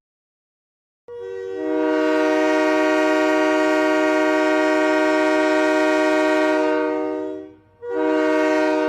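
Locomotive air horn sounding a chord of several steady notes: a long blast of about six seconds starting about a second in, then a second, shorter blast near the end.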